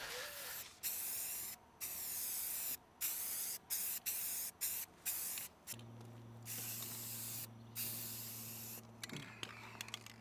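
Aerosol spray paint can hissing in a series of short bursts, each under a second with brief gaps between, as black paint is sprayed onto the welded steel frame. A faint low steady hum sits underneath in the second half.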